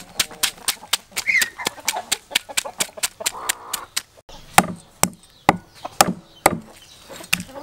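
A cleaver scrapes scales off a large fish in quick, even strokes, about four or five a second. From about four and a half seconds in come slower, heavier chops as the cleaver cuts through fins into a wooden chopping block.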